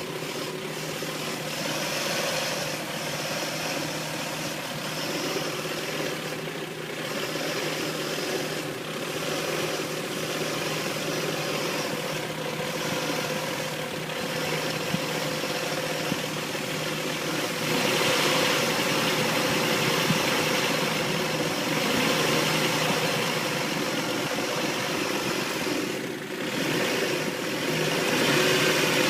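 Nissan Xterra V6 engine idling rough after a head gasket job, which the owner suspects is a vacuum leak. It gets louder a little past halfway through and again near the end.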